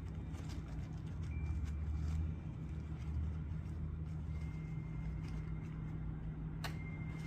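A steady low mechanical hum, with a few faint clicks and a sharp click near the end.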